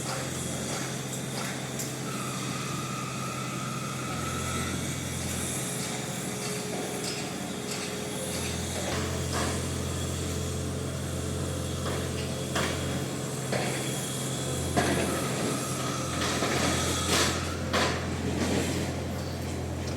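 Heavy construction machinery running steadily with a low engine hum, with scattered knocks and clanks of metal on metal that come thicker and louder in the second half. A thin high whine sounds briefly twice.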